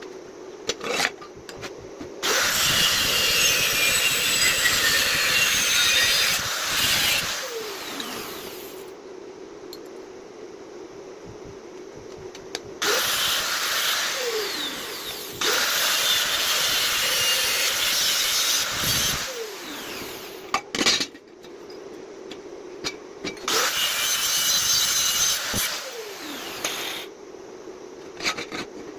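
Iron being worked with a power tool: three long bursts of harsh, hissing noise lasting several seconds each, with a few sharp clicks between them and a steady machine hum underneath.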